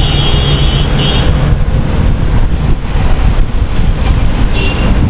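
Steady, loud rush of wind on the microphone and road noise from a moped being ridden, with a brief high-pitched tone near the start.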